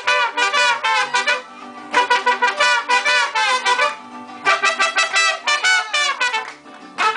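A live mariachi band playing, with trumpets and violins. They play fast phrases of quick notes, with short lulls between them.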